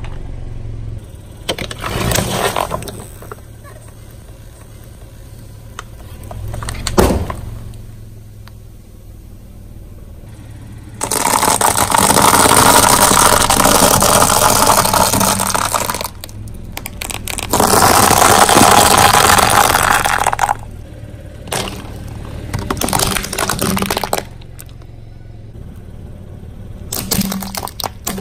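A car tyre rolling slowly over a series of objects, crushing them. In the middle come two long stretches of loud, dense crunching as it grinds over a pile of dry bow-tie pasta; before and after are shorter cracks and squelches, from crushed soda cans in slime and from plastic toys.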